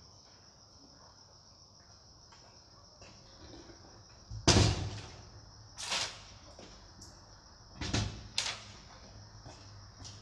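Doors knocking and banging shut, four sudden strikes with a short echo, the first about four and a half seconds in and the loudest, the last two close together near the end.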